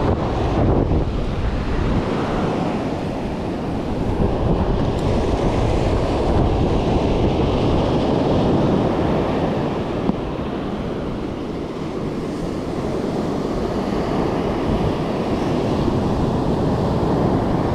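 Surf breaking and washing up a sandy beach, with gusty wind buffeting the microphone.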